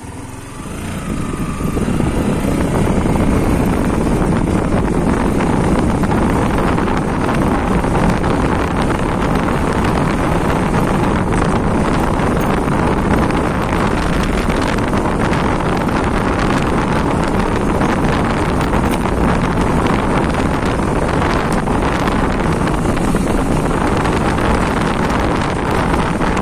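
Motorcycle riding along: wind buffeting the microphone over the engine and tyre noise. The noise dips in the first second or two, then runs steady.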